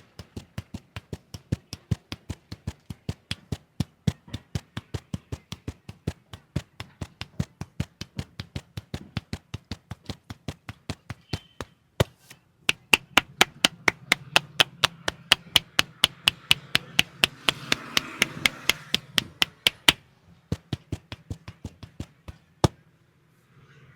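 A masseur's hands striking rhythmically in a percussive head and back massage, about three or four sharp slaps a second. After a brief pause about twelve seconds in they come back louder and quicker for several seconds, then stop shortly before the end.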